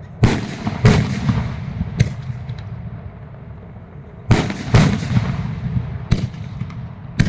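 Fireworks going off: a string of sharp bangs, about seven in all, some in quick pairs, with a low rumble between them.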